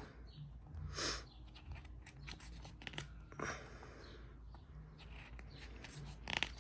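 Paper pages of a booklet being turned by hand: three short papery swishes, the last near the end the loudest, with small rustles and clicks of handling between them.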